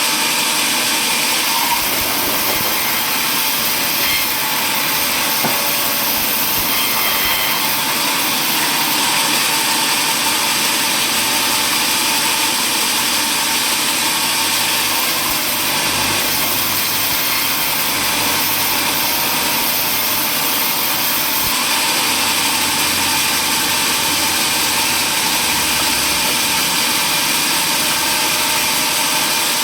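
Sawmill saw machinery running steadily, a loud constant mechanical noise with no break or change.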